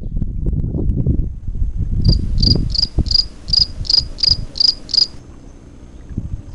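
Cricket-chirp sound effect laid over the track: nine evenly spaced high chirps, about three a second, cutting in about two seconds in and stopping abruptly three seconds later, over a low rumble.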